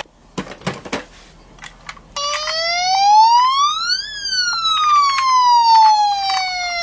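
Toy police van's electronic siren sounding one slow wail that rises for about two seconds and then falls away gradually. Before it come a few clicks of the plastic toy being handled.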